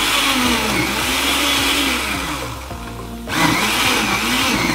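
Countertop blender chopping tomatoes, peppers and onions on its pulse setting, so the mix stays coarse. The motor's pitch rises and falls as the chunks churn; it eases off briefly about two and a half seconds in, then surges again.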